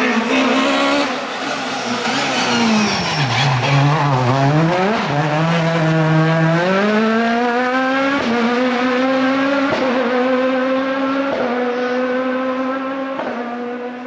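Peugeot 306 Maxi rally car's two-litre four-cylinder engine at full racing effort. Its note falls to about half pitch as the car slows, then climbs back. Later it runs through four sharp gear changes about a second and a half apart, and the sound fades out at the end.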